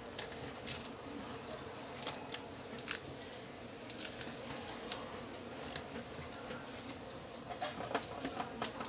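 Scattered small clicks and rustles of hands and tools handling things on a repair bench, more of them near the end, over a faint steady hum.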